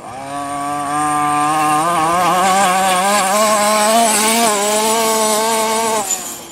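Small 29cc two-stroke gas engine of a 1/5-scale RC buggy, fitted with a Jetpro tuned pipe, held at full throttle on a high-speed pass. Its pitch climbs a little and wavers over the rough ground, then it drops off sharply about six seconds in as the throttle is let off.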